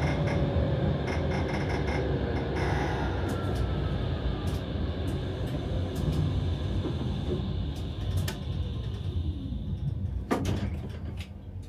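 Vario LF2R.E tram running on rails and slowing: the drive whine falls in pitch as the rolling rumble fades. A sharp clunk comes about ten seconds in, and the tram is quieter after it.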